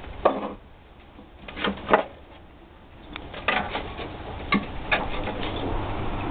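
A boxer and a French bulldog play-fighting: about half a dozen short, sharp scuffling and mouthing sounds. A steady low rumble comes up from about three seconds in.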